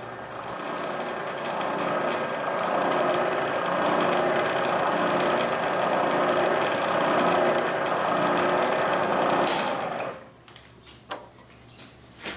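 Milling machine drilling a pilot hole into a 12-gauge shotgun barrel for the front-sight screw: a steady cutting and spindle noise that builds over the first couple of seconds and stops suddenly about ten seconds in.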